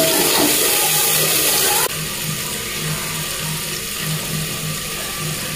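Water added to hot fried masala in an aluminium pressure cooker, a loud hissing sizzle that drops suddenly about two seconds in to a softer steady sizzle.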